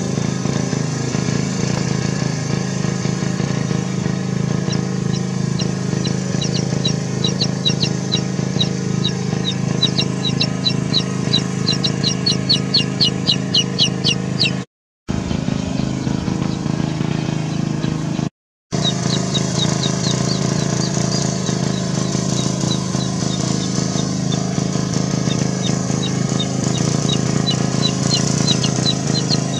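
A chicken chick peeping in rapid, repeated high calls, growing louder before a brief break and then starting again, over a steady motor drone.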